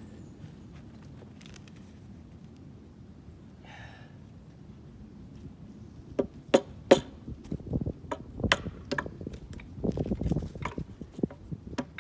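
Irregular sharp knocks and clinks from hands-on work setting timber-frame poles, starting about halfway through, with two loud knocks close together and a cluster of duller thuds near the end. The first half is quiet apart from a few faint clicks and a brief rustle.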